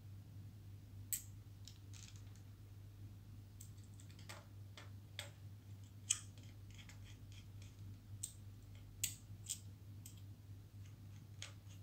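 Faint, irregular small metallic clicks and ticks from a precision screwdriver working the spindle clamp screw and platters of an opened 2.5-inch laptop hard disk, over a steady low hum.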